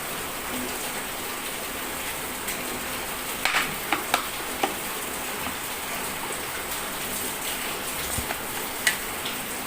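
Steady hiss of rain falling, with a few short clicks and taps about three and a half to four and a half seconds in and again near the end.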